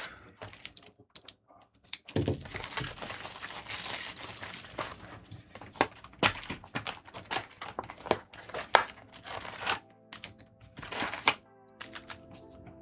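Crinkling and tearing of plastic and foil trading-card packaging, with sharp crackles, as sealed One Piece card product is opened by hand. Quiet background music shows near the end.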